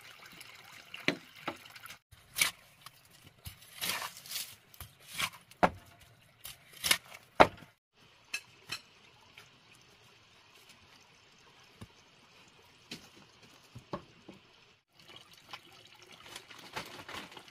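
Water sloshing and trickling, with a run of sharp splashes over the first eight seconds and only a few scattered ones after.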